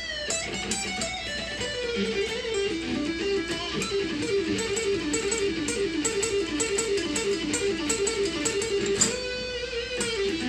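Electric guitar playing a fast, repeating run of notes, with longer held notes near the start and near the end.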